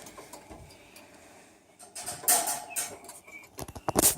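Scratchy clicks and taps, with a brief faint chirp, starting about two seconds in: a small parrot, taken for a cockatiel, moving about.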